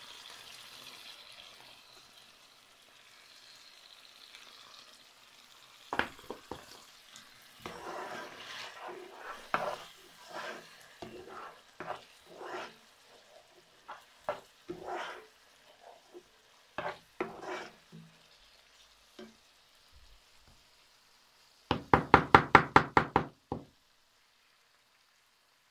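Tomato stew frying in a non-stick pot with a faint sizzle, and a plastic slotted spatula stirring and scraping against the pan in irregular strokes. Near the end comes a quick run of loud, sharp knocks lasting about a second and a half.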